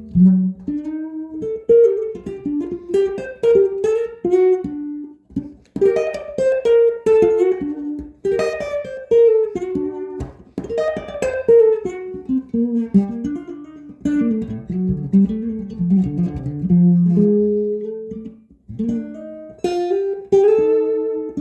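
Electric guitar with Seymour Duncan Zephyr humbucker pickups playing picked single-note melodic lines, each note plucked and decaying, with runs that climb and fall in pitch.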